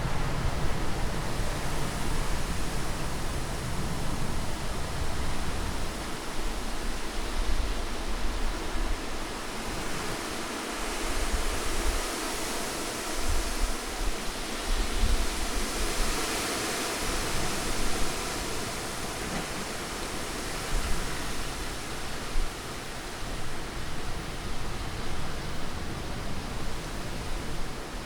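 Steady wind noise: a dense, even hiss that swells and eases slowly, brightest about halfway through, with the deep low rumble thinning out for several seconds in the middle.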